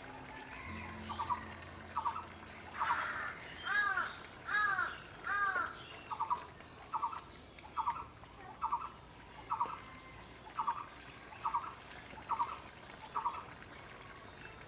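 A bird calling: a few drawn-out, arched calls, then a steady series of short, clipped notes about once a second.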